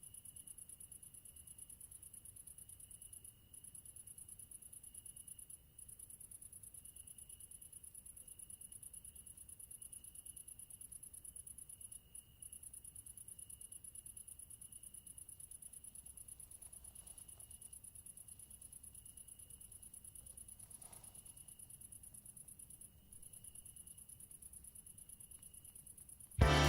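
Crickets chirping in a steady, very fast, high-pitched trill, with a few brief breaks. Music starts abruptly at the very end.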